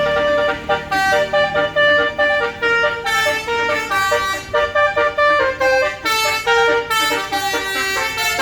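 Tour bus's basuri 'telolet' multi-tone air horn playing a tune, held notes at first, then a quicker run of short notes from about three seconds in.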